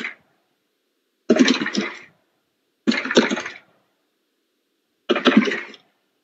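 A person coughing in short bouts, three of them about a second and a half to two seconds apart after the tail of one at the start, each bout a pair of quick coughs. Heard over a video call, with dead silence between the coughs.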